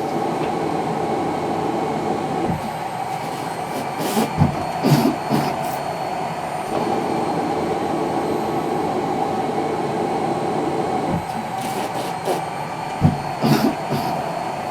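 Cough assist machine (mechanical insufflator-exsufflator) running steadily as it blows air into the lungs and then pulls it back out, with two short clusters of forced coughs, about four seconds in and again near the end.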